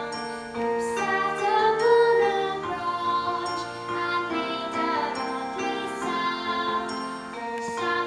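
A girl singing a slow song solo over instrumental accompaniment of struck, ringing notes.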